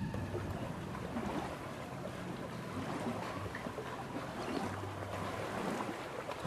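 Steady outdoor ambience of wind and water lapping along a waterfront, an even hiss with no distinct events.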